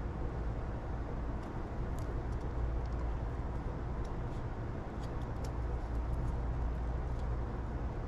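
Steady low outdoor rumble with a few faint small clicks scattered through it.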